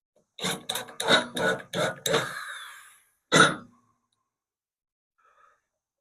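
A person coughing and clearing their throat: a quick run of about six coughs, then one more about a second later.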